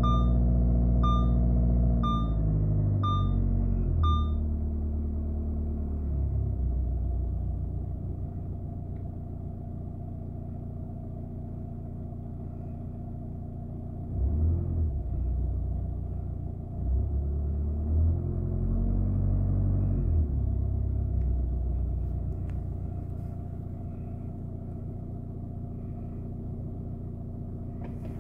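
Audi A6 C6's 2.0 TDI four-cylinder diesel running, heard from the cabin: held at about 1,800 rpm, then dropping to idle about five seconds in, with a few brief rises in engine sound midway. A warning chime beeps about once a second over the opening four seconds.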